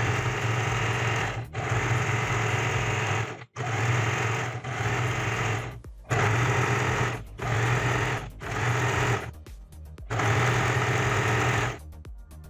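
Usha Janome Dream Stitch electric sewing machine stitching along the edge of a canvas-backed fabric strip. It runs in stretches of one to two seconds with brief stops between, and stops about a second before the end.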